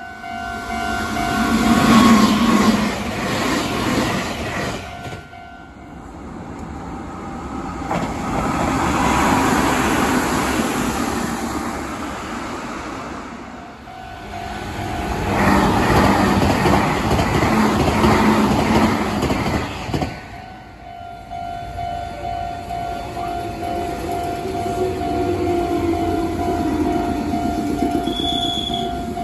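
Meitetsu express electric train made up of two coupled 3100 series sets passing, its rumble swelling and fading three times.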